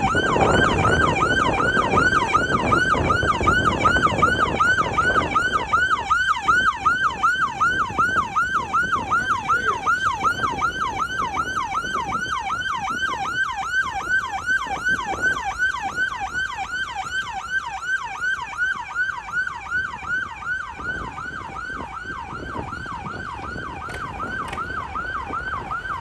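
Sheriff's patrol car siren on a fast yelp, a rising-and-falling wail repeated about three times a second, easing off slightly in the second half. A low vehicle rumble runs under it for the first few seconds.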